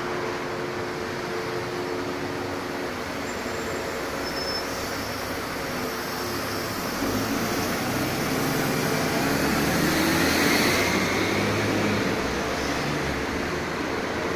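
Street traffic, with a city bus driving past close by. It swells louder from about halfway through and eases off again, over a steady engine hum.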